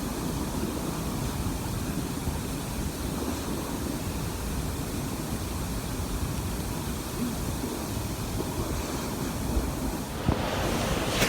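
River waterfall rushing steadily, a continuous hiss and rumble of falling water, with wind buffeting the microphone.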